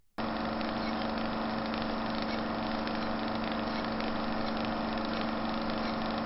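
A steady, even drone with a low hum that starts abruptly and holds at one level.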